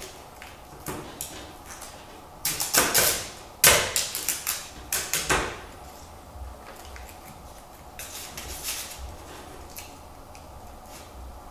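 A thin perforated foil sheet rustling and crinkling as hands lift, bend and reposition it. There is a run of sharp crackles in the middle, then lighter handling rustles.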